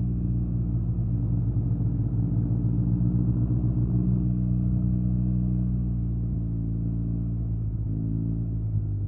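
Yamaha TMAX 560's parallel-twin engine through an Akrapovic carbon full-system exhaust, running at fairly steady riding revs. The pitch shifts and dips slightly near the end.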